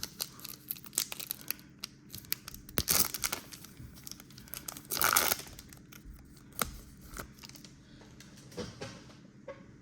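A trading card pack wrapper being torn open and crinkled by hand: a run of sharp crackles and rips, loudest about three and five seconds in.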